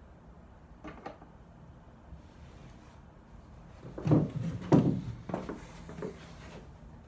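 A few dull knocks and rubbing handling noises, the loudest two close together about four seconds in, after a faint click or two about a second in.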